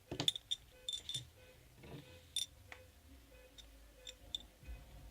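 Two-bearing fidget spinner being handled and spun: scattered light clicks and ticks, irregular, over a faint steady hum.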